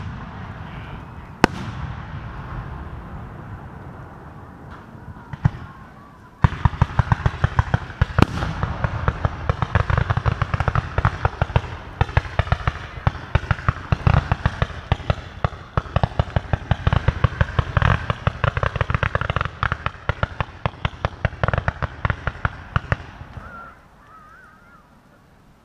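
Fireworks exploding: a few single sharp bangs in the first seconds, then from about six seconds in a dense, rapid string of bangs lasting some seventeen seconds, which drops off suddenly near the end.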